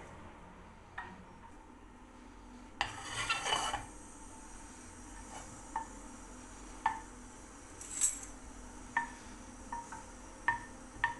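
Kitchen clatter: a short scraping rustle, then a string of light, ringing clinks of utensils against dishes.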